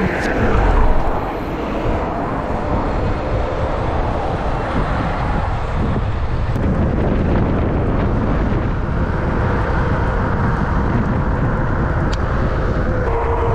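Steady wind buffeting on the microphone mixed with tyre and road noise from an e-bike riding at speed, with a louder gust about a second in.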